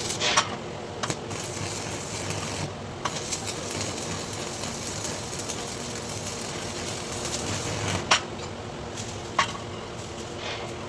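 Electric arc welding: a steady crackling hiss, with a few sharp metallic clicks.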